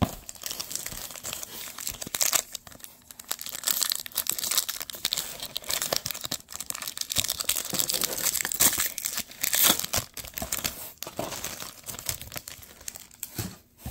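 Foil wrapper of a Topps Chrome trading card pack crinkling in the hands and being torn open: irregular crackling that comes and goes in louder patches.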